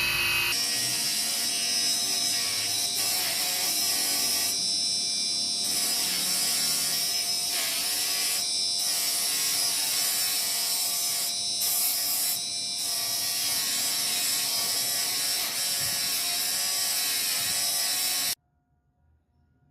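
A small electric power tool runs steadily with a high whine, working on the metal of a pocket knife during its restoration. It cuts off suddenly near the end.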